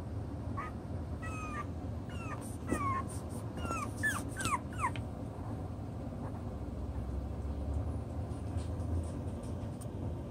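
Six-week-old Toy Poodle puppies whimpering and yipping: a quick run of short, high-pitched cries that slide up and down in pitch, dying away about five seconds in.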